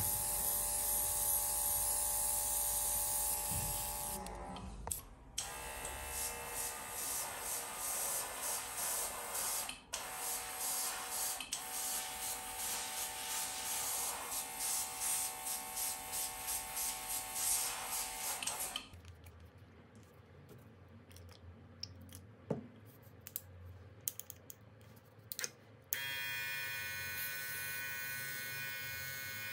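Small battery-powered airbrush compressor built into the airbrush grip, running steadily as the airbrush sprays paint. About two-thirds through it drops to a low level with a few clicks, then starts up again near the end.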